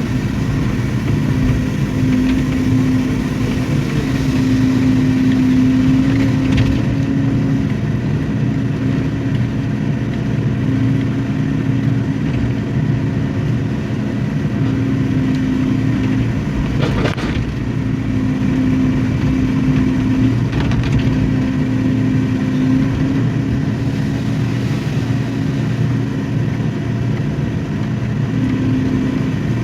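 Excavator's diesel engine running steadily under working load, its hum swelling and easing as the hydraulics work. A few brief knocks or scrapes, the clearest about halfway through.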